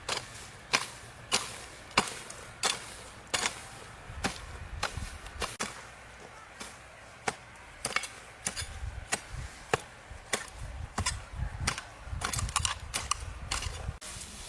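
Repeated blows of a hand tool on wood: strong, evenly spaced strikes at about one and a half a second, then lighter, quicker, irregular knocks from about four seconds in.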